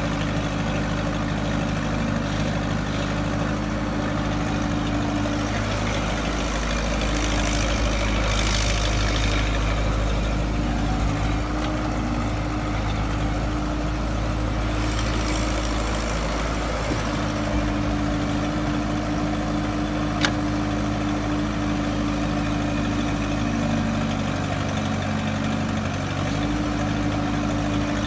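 Excavator engine running steadily, its pitch shifting a little now and then, with a brief hiss twice and a single sharp click about twenty seconds in.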